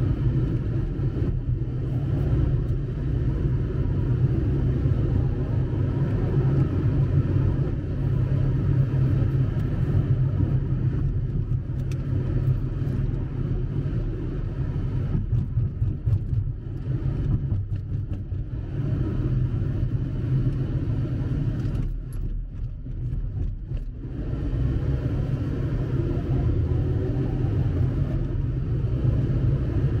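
Steady low rumble of a car driving, engine and tyre road noise heard from inside the cabin. It eases off briefly about three-quarters of the way through.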